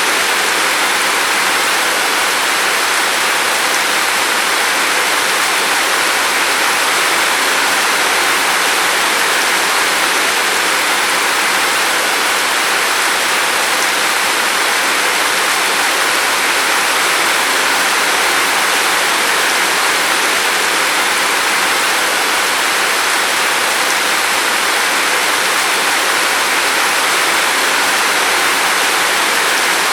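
Steady rain falling outside a window: an even, unbroken hiss with no separate drops or thunder standing out.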